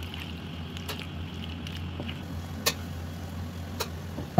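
Penne being stirred into thick creamy white sauce in a frying pan, a soft wet squelching with a few sharp clicks of the utensil against the pan, over a steady low hum.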